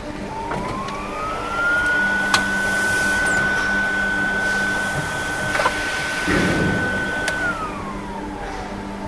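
Plastic injection moulding machine running through its cycle. A motor whine rises in pitch over about two seconds, holds steady, then falls away near the end, over a mechanical hum, with a few sharp clicks along the way.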